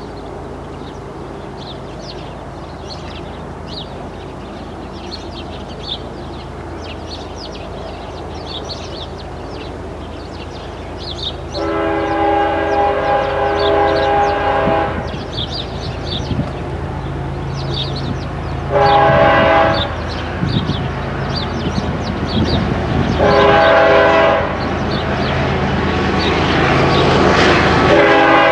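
Diesel freight locomotive approaching with a steady low engine drone that grows louder, sounding its multi-tone air horn in three blasts, the first about three seconds long and the next two short, with a fourth blast starting near the end.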